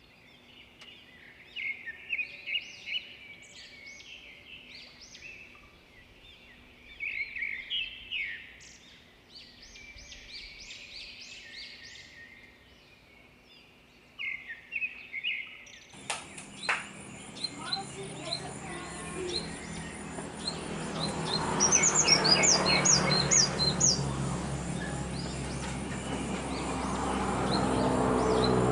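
Small birds chirping in short, high calls. About sixteen seconds in, the background turns louder and noisier, and quick runs of high chirps follow.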